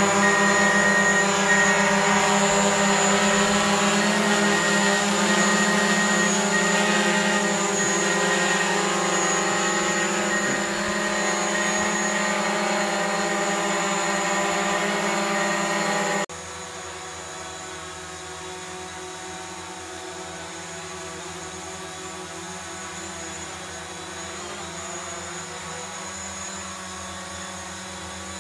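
DJI Mavic Pro quadcopter hovering, its four propellers making a steady hum of several pitches at once. About two-thirds of the way through it cuts suddenly to a noticeably quieter hum with a different pitch pattern: the same drone on low-noise propellers instead of the standard ones.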